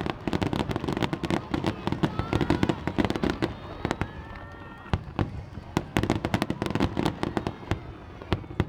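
Fireworks display: many shells bursting in rapid, dense succession, a continuous run of sharp bangs and crackles that thins a little around the middle.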